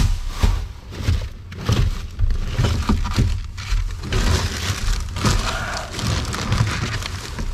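Rubbish being rummaged through in a wheelie bin: plastic bags crinkling and rustling, with irregular knocks and clatters of cans and containers being shifted.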